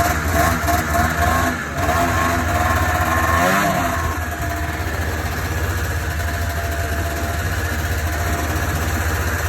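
Ski-Doo RV Blizzard snowmobile's two-stroke engine running, its speed pulsing unevenly at first, rising briefly about three and a half seconds in, then holding a steady pitch.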